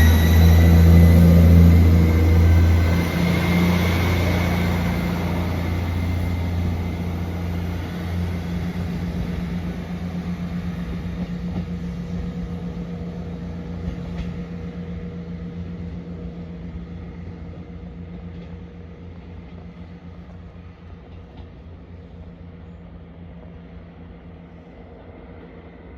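A Class 158 diesel multiple unit pulling away from the station, its diesel engine loud at first and then fading steadily into the distance, with a thin high whine in the first few seconds.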